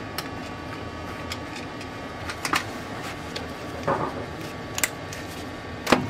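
Handling noise in a workshop: a few scattered sharp clicks and knocks, the loudest just before the end, over a steady background hum.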